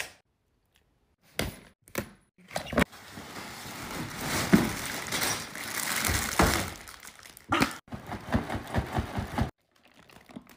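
Plastic bags of Lego pieces crinkling and rustling as they are pulled from a cardboard box, the loose bricks rattling inside, with a few clicks and knocks of handling before it.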